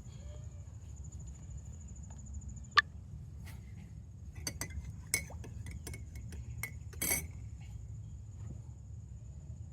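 Scattered light clicks and clinks of dishes and cutlery, with one sharp ringing clink about three seconds in and a run of clicks in the middle, over a steady low background rumble and a faint high steady whine.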